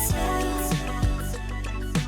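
Intro music with a steady beat: rhythmic pop/R&B-style track with a deep bass drum.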